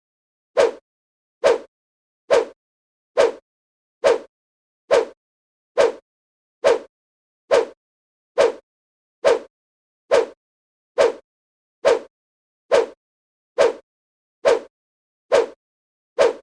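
Air-punch swoosh sound effect: a short whoosh of a fist swung through the air, repeated identically a little more than once a second, with silence between each.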